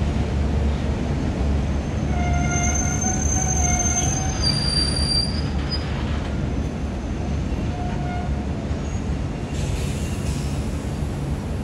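Stainless-steel passenger carriages rolling slowly past with a steady low rumble. Their wheels squeal in several high tones from about two to five seconds in, with a short squeal again near eight seconds.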